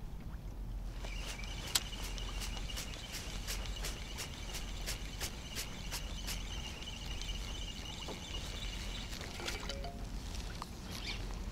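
Spinning reel cranked steadily on the retrieve: a steady high whirr with even clicks about three times a second. It stops near the end, followed by a few short low tones.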